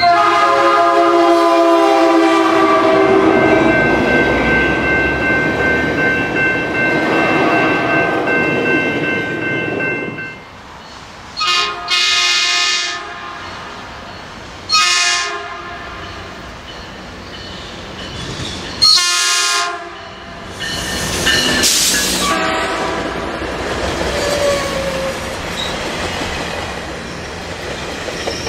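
Commuter train horn: a long, loud chord of several tones lasting about ten seconds, then three shorter blasts as a Metrolink train approaches. After that the train passes close by, with the rumble and clatter of its wheels on the rails.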